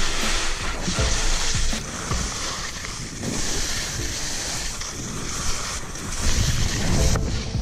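Skis scraping and hissing over snow on a steep downhill run, swelling and easing with the turns, with wind rumbling on the camera microphone.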